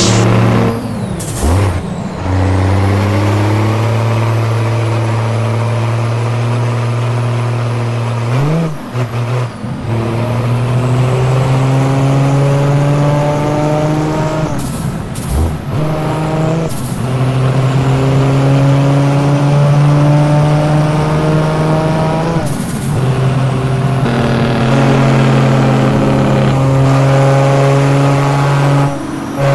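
Scania V8 truck engine with a straight-through exhaust pulling up through the gears: the engine note climbs slowly, breaks off at each gear change about every six to seven seconds with a short burst of hiss, then climbs again.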